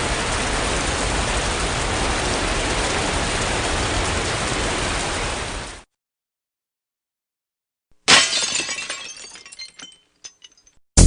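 A steady hiss that fades out about six seconds in. After two seconds of silence comes a sudden loud crash of shattering glass, its tinkling pieces dying away.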